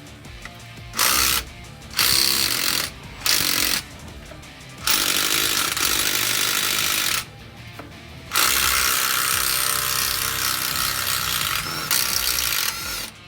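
Power impact wrench run in repeated bursts, loosening the bolts that hold the old driveshaft. Several short bursts come first, then two long runs in the second half.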